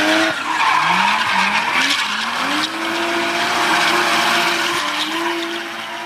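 Sports car engine revving hard, its pitch climbing in several short rises before holding steady, with tyres screeching over it; the sound fades away near the end.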